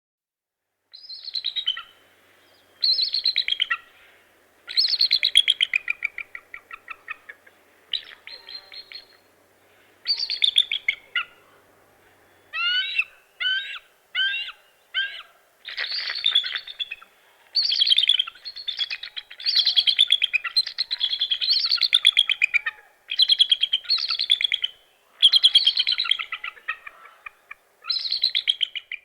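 Bald eagle calling: repeated phrases of rapid, high-pitched piping notes, each a second or two long and falling in pitch. Four short separate notes come about halfway through.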